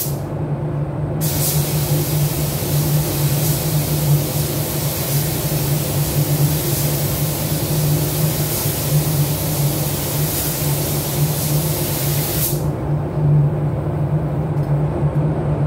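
Automotive paint spray gun hissing as it sprays clearcoat, starting about a second in and cutting off near the end, over a steady low hum.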